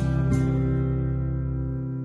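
Background music: a chord rings out after a few plucked notes and slowly fades away.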